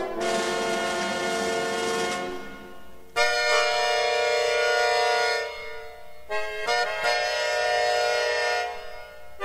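Concert accordion holding long sustained chords in a concerto for accordion and orchestra: one chord fades, then a louder new chord comes in about three seconds in, and another about six and a half seconds in.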